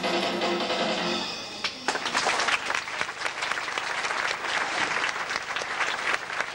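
A song comes to its close, then about two seconds in an audience starts applauding, with steady clapping that thins out near the end.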